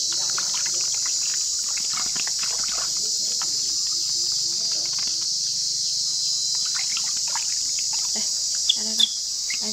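A steady, loud, high-pitched insect chorus, with water splashing and trickling in a plastic basin as hands scoop water over a baby monkey. Two sharp knocks about nine seconds in.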